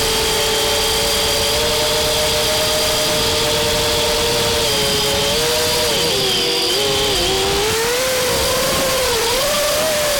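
Brushless motors of a 6S multirotor drone whining in flight. The pitch holds steady, dips and wavers about halfway through, then rises again near the end.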